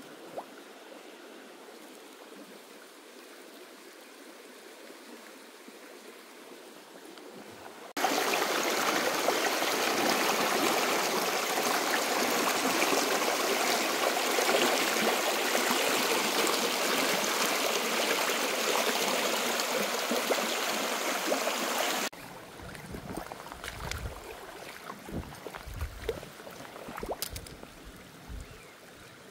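Small stream's running water: a faint flowing hiss, then, about eight seconds in, an abrupt change to a loud, even rush of water that cuts off just as suddenly some fourteen seconds later. After it the flow is faint again, with a few low thumps.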